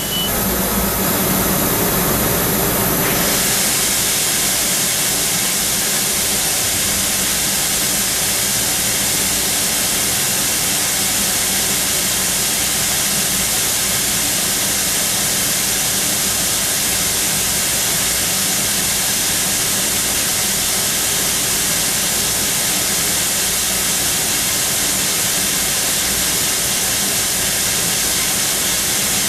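CNC machining center running a carbide-drill drilling cycle in hardened tool steel, with a steady, loud spray hiss over a faint low hum. The sound changes character about three seconds in, then holds steady.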